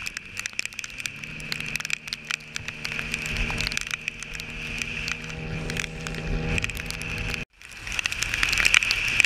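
Yamaha street bike's engine running at a steady pitch while riding in the rain, with a dense crackle of raindrops striking the camera and a constant high hiss. The sound drops out for a moment about seven and a half seconds in.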